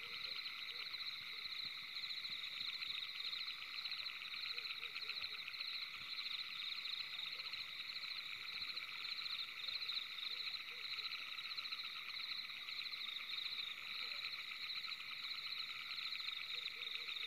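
Dense, steady night chorus of calling animals: a fast, high trilling in several pitch bands that goes on without a break.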